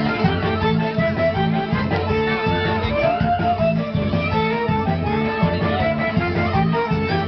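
Festa junina quadrilha dance music playing loudly: a melody carried by sustained notes over a steady, dense beat.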